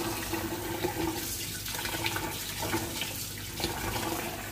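Kitchen tap running in a steady stream into a stainless-steel sink, the water splashing as hands rinse under it, with a few small clicks.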